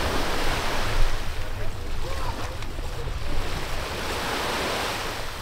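Sea waves washing in and out in surges, with wind buffeting the microphone.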